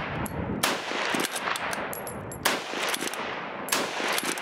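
Lee-Enfield No4Mk1 bolt-action rifle, sporterized, firing rapidly: three loud shots about a second and a half to two seconds apart, each with a long echoing tail. Sharp clicks between the shots come from the bolt being worked.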